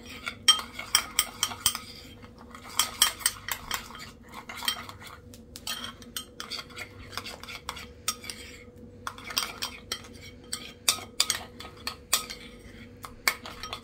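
A spoon stirring a thick spice marinade in a bowl, clinking and scraping against the bowl in quick, irregular strokes.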